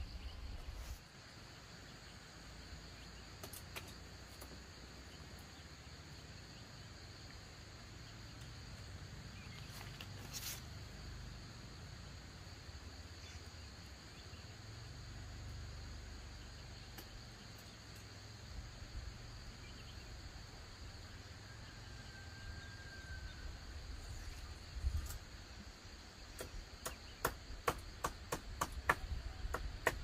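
Steady chirring of insects with a low rumble underneath. Near the end a run of sharp knocks starts, about three a second.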